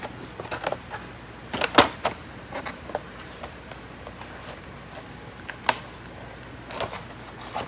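Scissors snipping at a toy's plastic packaging, with the packaging handled between cuts: scattered irregular clicks and short crinkles, the loudest a sharp snap about two seconds in.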